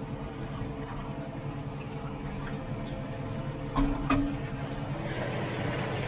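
New Holland T7 tractor's diesel engine running steadily, heard from inside the cab, with two short clicks about four seconds in. Near the end the engine sound grows rougher and a little louder as the plough goes into the ground and loads it.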